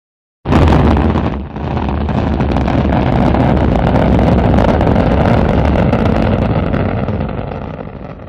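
Rocket engine firing as a sound effect: a loud, steady, rushing rumble that starts abruptly about half a second in, dips briefly a second later, then holds and fades away near the end.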